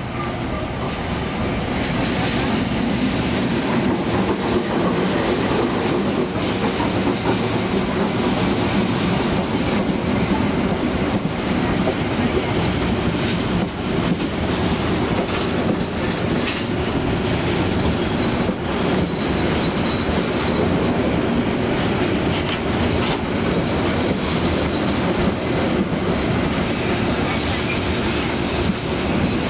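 Bangunkarta passenger train passing close by, growing louder over the first couple of seconds as it arrives, then a steady loud run of coaches with the wheels clacking over rail joints and some wheel squeal.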